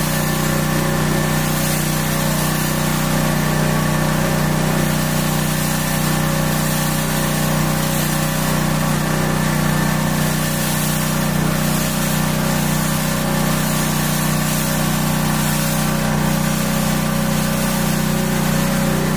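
High-pressure washer running steadily: a constant machine hum under the hiss of the water jet spraying.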